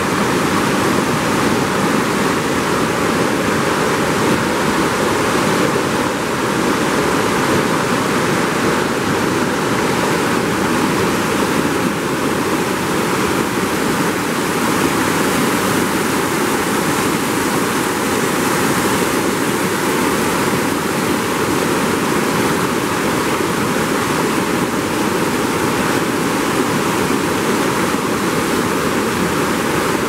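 Swollen river in flood rushing over rocks in muddy rapids: a loud, steady wash of turbulent water that does not let up.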